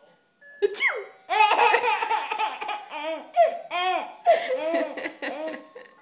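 Baby laughing in a string of repeated pitched bursts, starting about a second in.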